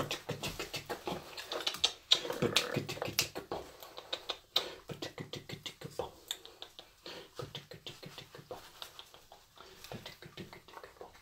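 Rapid beatbox-style clicks and pops from a man and his hyacinth macaw playing together, several a second. A short soft pitched sound comes about two seconds in, and the clicks grow fainter and sparser toward the end.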